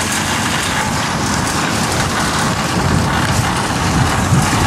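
A shopping cart's wheels rattling over wet parking-lot pavement, mixed with strong wind buffeting the microphone.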